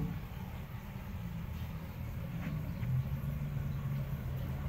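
Steady low mechanical hum, with its drone growing stronger about three seconds in.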